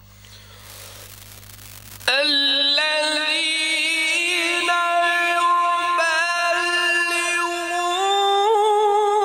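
A man's voice in melodic Quran recitation (tilawat) starts suddenly about two seconds in, after faint background noise, with long drawn-out notes ornamented with quick turns, amplified through a microphone. Near the end the held note steps up in pitch.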